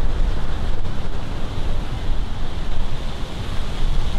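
Wind buffeting the microphone: a steady, loud rushing rumble, heaviest in the low end.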